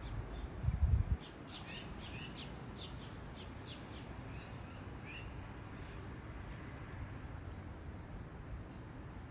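A bird calling a rapid series of sharp, short notes, about three a second for roughly three seconds, then a few more scattered calls, over a steady low background rumble. A louder low rumble fills the first second.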